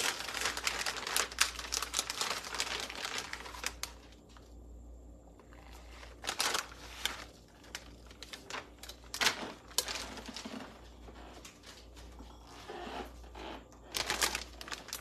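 Plastic shredded-cheese bag crinkling as cheese is shaken out of it: quick crackling rustles, thick for the first few seconds, then in scattered short bursts.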